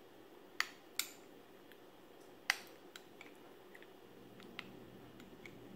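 Metal spoon clicking and tapping as someone scoops and eats from a small cup: three sharp clicks in the first few seconds, the third the loudest, then a scatter of lighter ticks.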